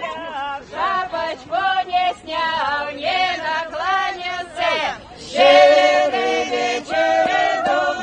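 A group of men and women singing a song together in chorus, unaccompanied, growing louder on a long held phrase about five seconds in.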